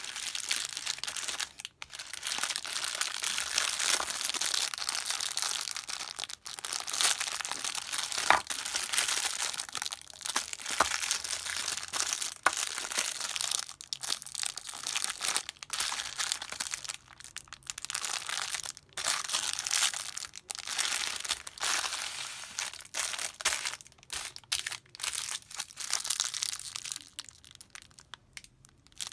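Thin clear plastic bags crinkling as fingers squeeze and turn the small toy figurines sealed inside them: a dense, close crackle with brief pauses, quieter near the end.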